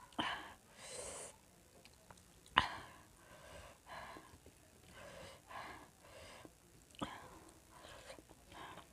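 Close mouth sounds of eating chicken feet by hand: wet smacking and sucking, with sharp breaths between, in short bursts every second or so. The loudest is a sharp smack about two and a half seconds in.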